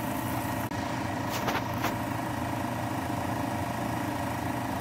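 Steady low hum of a small motor, with a few light clinks about a second and a half in as a glass lid is set on a pot of stew.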